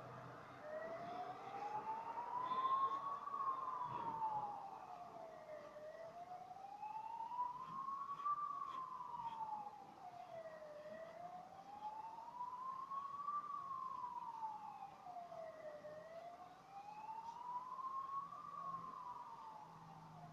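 A siren wailing slowly, its pitch rising and falling about every five seconds, starting about a second in.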